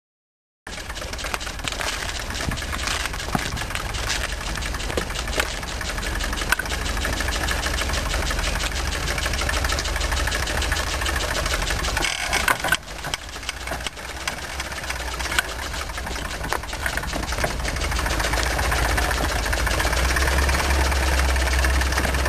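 Motorized rickshaw's engine running steadily. It cuts in abruptly just under a second in, dips briefly about halfway through, and grows louder near the end.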